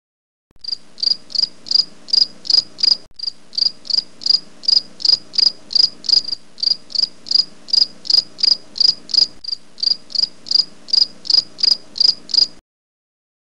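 Cricket chirping sound effect: short, even chirps at about three a second over a faint low hum, starting suddenly and cutting off abruptly near the end. It is the comic 'crickets' gag for an awkward silence.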